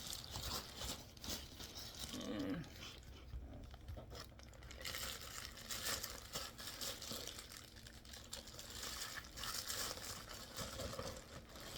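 Packaging being handled and unwrapped: irregular rustling and crinkling with scattered clicks and crunches as parts are pulled out of their wrapping.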